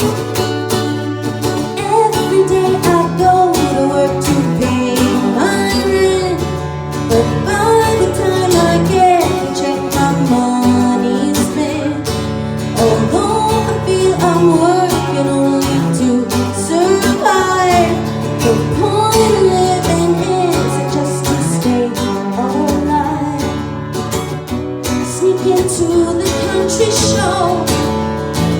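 Live acoustic guitar and singing: the guitar is strummed, and the voice comes in about two seconds in, singing over it.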